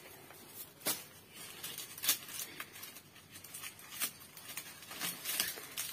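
Dried leaf bundles and twisted straw rope rustling, with irregular sharp crackles among the rustling, as they are handled and hung on a beam by hand.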